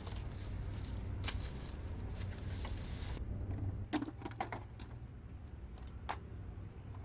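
Sharp plastic clicks and knocks from a CRT computer monitor and a computer keyboard being handled and set down on a rock, with a cluster of several clicks about four seconds in. Under them runs a steady low hum, with a hiss that cuts off suddenly about three seconds in.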